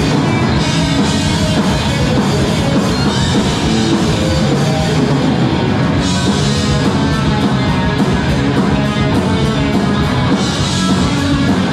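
Live rock band playing loudly: electric guitar, bass and drum kit, without vocals, with cymbals washing in about halfway through and again near the end.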